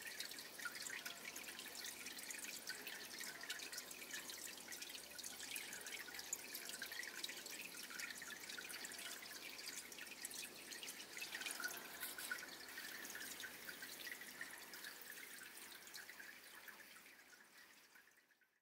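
Water lapping and dripping against a harbour pier: many small splashes and drips, fading out over the last couple of seconds.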